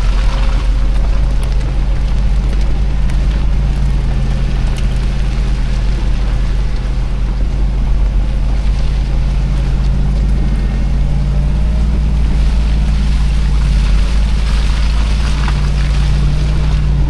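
Lexus GX470 driving, a steady low engine and road drone that rises slightly in pitch about two-thirds of the way through.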